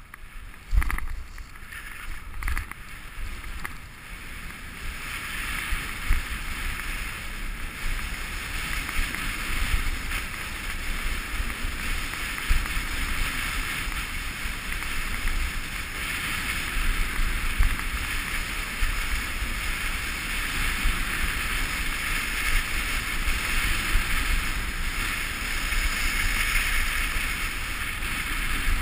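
Wind buffeting the camera's microphone and skis hissing over groomed snow on a fast downhill run, a steady rushing noise that grows louder about five seconds in. A few sharp knocks in the first three seconds as the skis cross choppy snow.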